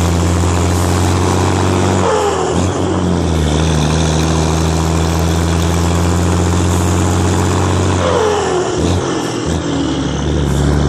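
Volvo F12 truck's turbocharged straight-six diesel running under way, heard at its vertical exhaust stack. Twice, about two seconds in and again about eight seconds in, a turbo whistle falls away as the engine note briefly dips, then the steady pull resumes.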